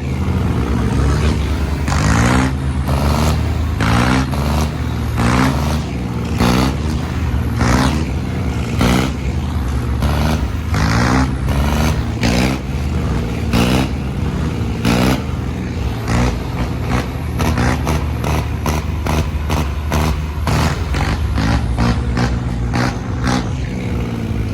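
Tractor diesel engine running hard under load, its revs surging up and dropping again about once a second, with short sharp noisy bursts through the sound.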